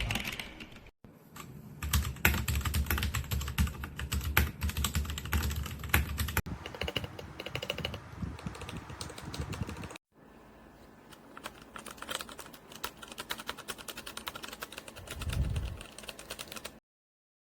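Rapid typing on an RK68 65% mechanical keyboard with Gateron switches: a quick run of keystroke clicks, broken into several short takes that start and stop abruptly, and stopping dead near the end.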